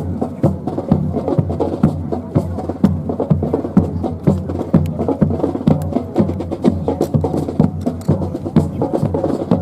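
Music playing, with frequent sharp wooden clacks throughout from a drill team's rifles being slapped and handled.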